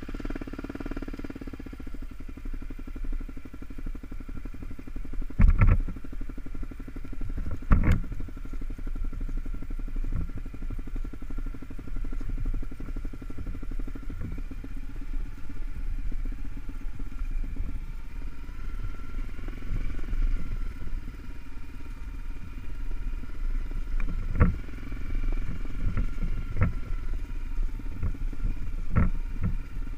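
Honda CRF250L's single-cylinder four-stroke engine running steadily as the dual-sport bike rides along a dirt trail, with several sharp knocks as the bike jolts over bumps, the loudest two in the first third and a cluster near the end.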